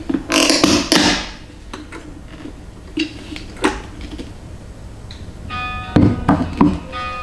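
A run of sharp knocks and clatter from household objects being handled, after a loud rustling burst in the first second. A short pitched tone sounds a little after five seconds and again near the end.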